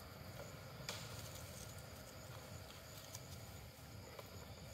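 Faint outdoor background with a low rumble and a few light clicks, the sharpest about a second in.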